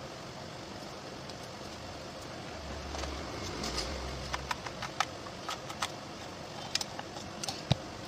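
Small screwdriver driving screws into a plastic Bluetooth speaker case: scattered light clicks and ticks of metal tool on screw and plastic from about three seconds in, with one sharper click near the end, over a steady background hiss.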